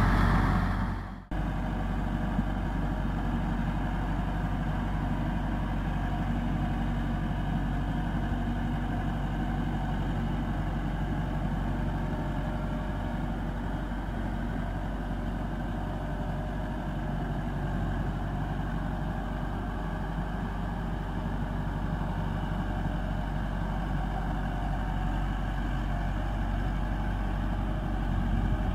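Massey Ferguson 385 tractor's four-cylinder diesel engine running steadily under load as it pulls a rotavator and plank through flooded mud. The sound drops out briefly about a second in, then carries on at an even level.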